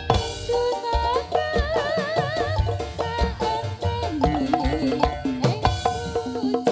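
Javanese jaranan dance music: hand drums beating a driving rhythm under a melody line that wavers up and down near the start.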